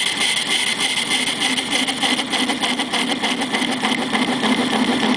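Engine lathe running with a parting tool cutting into a cast-iron workpiece and chattering, a steady high-pitched rattle: the tool is sticking too far out of its holder.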